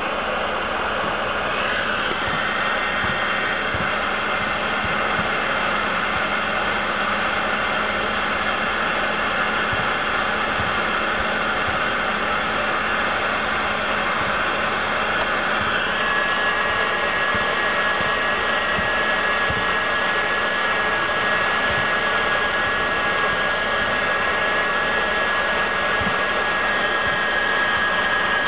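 Heat gun blowing steadily while shrinking heat-shrink tubing on wire terminals. Its whine changes to a clearer, steady tone about halfway through.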